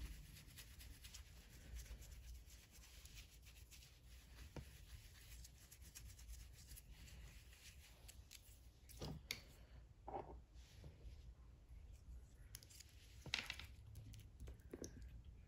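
Near silence with faint handling noises: a soft brush sweep near the start, then scattered light clicks and rustles of long artificial nails and a small bottle, with a few louder ticks about nine and thirteen seconds in.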